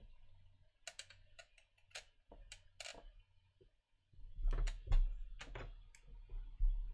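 Typing on a computer keyboard: irregular key clicks, with louder low thuds from about halfway on.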